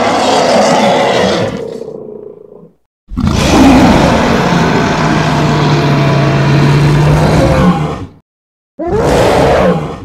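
Roar sound effects voicing a monster gorilla: one roar fades out over the first three seconds, a long roar lasts about five seconds, and a short roar comes near the end.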